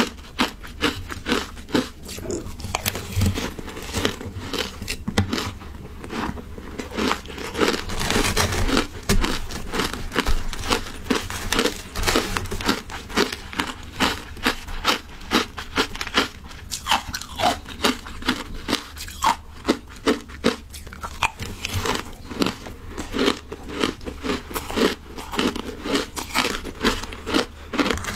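Shaved ice being chewed close to a clip-on microphone: a fast, irregular run of crisp crunches that goes on throughout.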